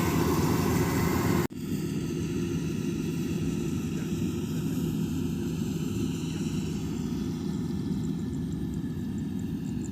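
Engine running steadily. About a second and a half in the sound cuts abruptly to a quieter, duller engine drone that carries on unchanged.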